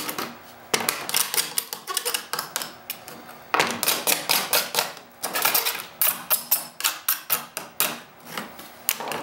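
Quick repeated scraping strokes of a hand tool taking the burrs off the cut edges of a plexiglass (acrylic) sheet, with light clicks and taps of the plastic.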